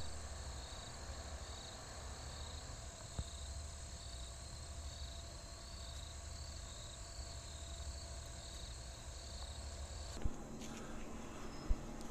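Night insects chirping in a pulsing high trill that repeats about twice a second, over a steady high hiss. The chirping cuts off abruptly about ten seconds in.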